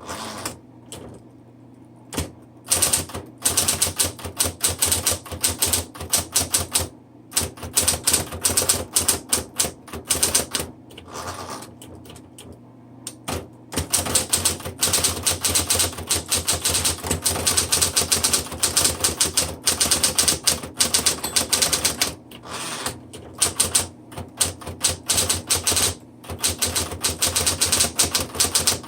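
Smith Corona Electra 110 electric typewriter being typed on: quick runs of keystrokes broken by a few short pauses, over the steady hum of its running motor. The keys strike without hesitation; the machine is working properly.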